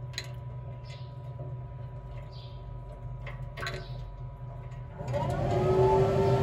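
Traeger Pro Series 575 pellet grill starting up: a steady low hum with a few light clicks. About five seconds in, the grill's fan spins up, a rising whine that settles into a steady, louder tone.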